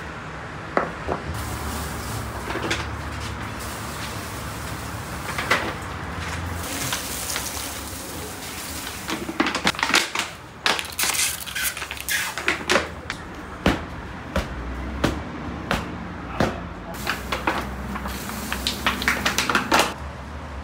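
Scattered clicks and knocks of kitchen handling, as ceramic bowls and metal baking trays are moved about, over a steady low hum; the knocks come thickest in the middle and again near the end.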